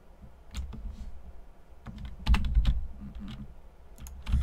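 Computer keyboard keys and mouse buttons clicked a handful of times, several clicks close together about two seconds in, over a low steady hum.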